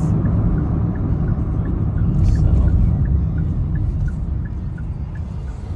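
Road and engine rumble inside a moving car's cabin, steady and low, with a faint regular ticking about three times a second and a brief hiss about two seconds in.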